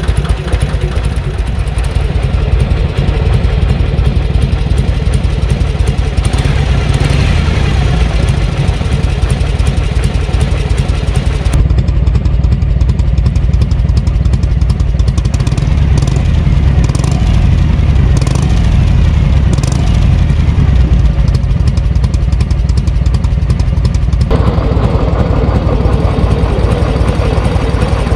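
Harley-Davidson Shovelhead FLH's V-twin engine running while the bike is ridden, a steady heavy low rumble whose sound shifts about 12 seconds in and again near 24 seconds. The engine is being run in after repair of an abnormal engine noise.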